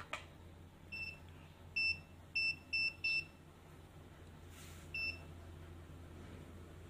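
Digital multimeter (Kyoritsu) beeping while its probes test a transistor: six short, high, single-pitched beeps. One comes about a second in, four follow in quick succession around two to three seconds, and a last one about five seconds in.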